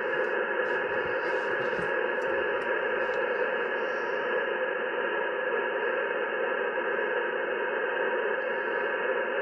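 Yaesu FT-710 HF transceiver's speaker giving steady rushing static in upper sideband, cut off above about 3 kHz, with faint steady tones running through it. It is interference noise that the operator thinks comes largely from his computer.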